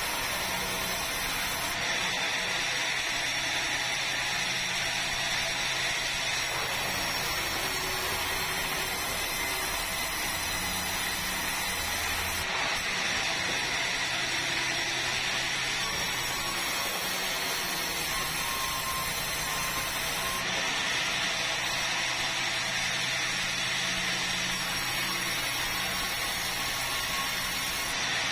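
Sawmill vertical band saw running steadily while it saws a large red meranti log into boards: a continuous even noise with a low steady hum underneath.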